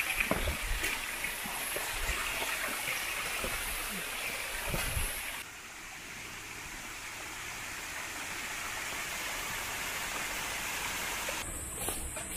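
Hikers' footsteps on a forest trail over a steady outdoor hiss. The hiss drops abruptly about five seconds in and goes on more evenly, then changes again near the end.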